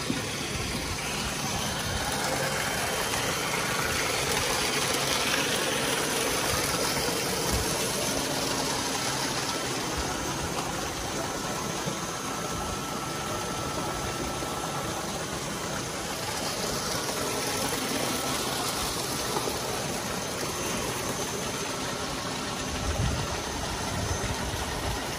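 Steady rushing and splashing of churning water in an aerated tilapia tank, with water pouring in from an inlet pipe.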